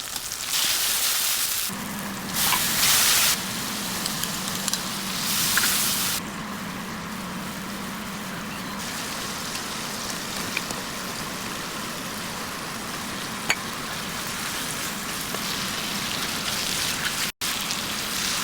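Potatoes and cauliflower frying in hot oil in a pan, a steady sizzle that flares louder three times in the first six seconds.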